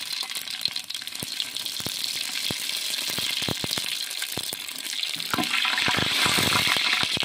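Whole spices (bay leaves, cinnamon and fennel seeds) sizzling and crackling in hot oil in a metal pot, while a spatula stirs them. The sizzle grows louder about five seconds in.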